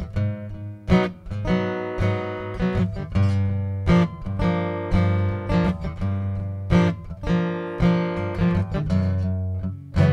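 Steel-string acoustic guitar strummed in a steady rhythm of chords, with sharp accented strokes between ringing chords.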